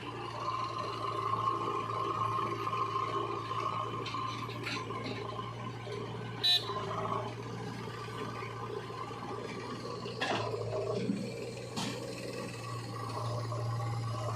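Diesel engine machinery, a backhoe loader working with a tractor, running steadily with a low hum and a whine over the first few seconds. Scattered knocks and clanks sound throughout, and one short, sharp, loud sound comes about six and a half seconds in.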